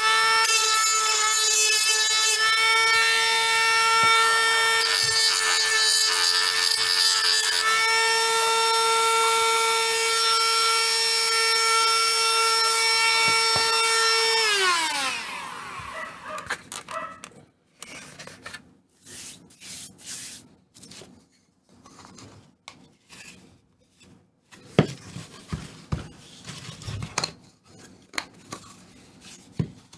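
Handheld rotary tool running at a steady high pitch as it shapes a piece, then switched off about halfway through, its pitch falling as it winds down. After that, quiet handling clicks and taps, with one sharper knock later on.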